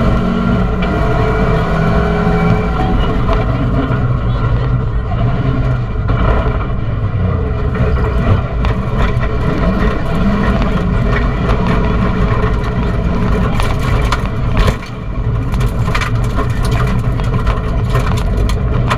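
Rally car engine heard from inside the cabin, driven hard and revving up and down with the gear changes. A little past two-thirds through there is a brief lift off the throttle, followed by a cluster of sharp cracks. The co-driver's voice reading pace notes comes through over the engine.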